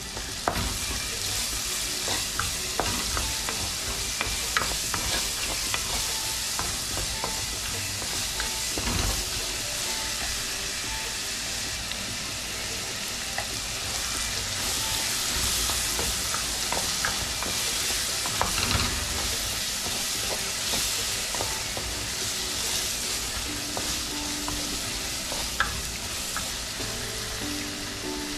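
Diced onion and garlic sizzling as they fry in achiote oil in a metal pot, stirred with a wooden spoon that now and then knocks and scrapes against the pot.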